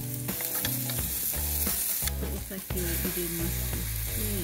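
Chopped onions sizzling as they fry in a small pan on a portable gas burner. The sizzle cuts out briefly about two seconds in, then resumes.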